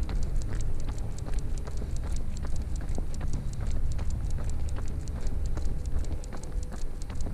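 A dog's overgrown toenails clicking on the pavement as it trots, a fast, even run of sharp clicks, several a second, over a steady low rumble.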